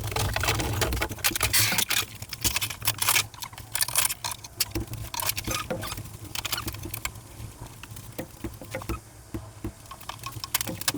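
Irregular clicks, knocks and rustling of things being handled close by, busiest in the first few seconds and thinning out later, over a steady low hum.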